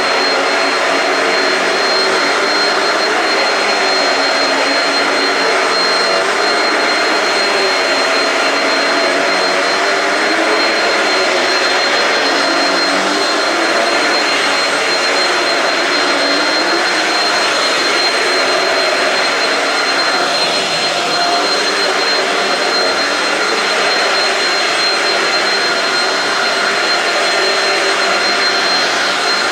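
Shark Rocket stick vacuum with DuoClean running steadily over carpet, its motor noise with a thin, high, steady whine on top.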